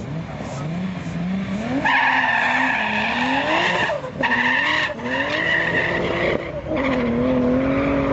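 Turbocharged BMW E30 drag car with an E34 M5 straight-six revving at the line, then launching hard with its tyres squealing. The engine pitch climbs and drops back at three quick gear changes as it accelerates away.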